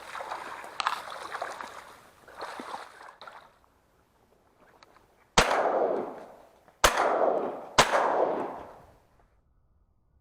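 Three shotgun shots, the first about five seconds in and the last two under a second apart, each trailing off in a long echo. They come after a few seconds of water splashing and knocks around a boat.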